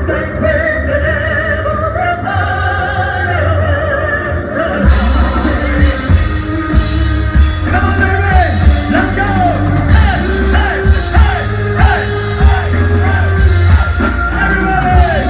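Live rock band performing with singing: held sung lines with little low end at first, then drums and bass come in hard about five seconds in, with singing over the full band.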